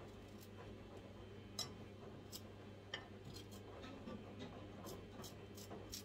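Kitchen knife slicing small cucumbers into rings on a cutting board: faint, irregular knocks of the blade through the cucumber onto the board, about two a second from a second and a half in.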